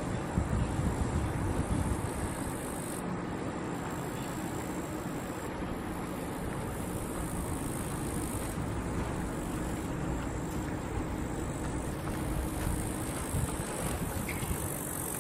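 Wind rushing over the microphone during a ride on a fixed-grip double chairlift, buffeting hardest in the first two seconds, over a faint steady hum.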